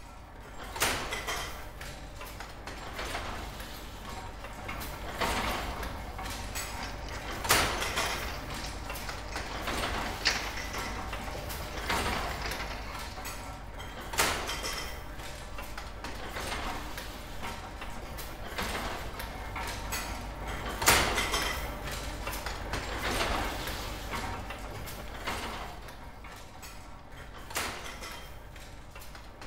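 1930s Crabtree Axminster gripper loom running, a mechanical clatter with a louder clack about every two seconds over a steady low hum.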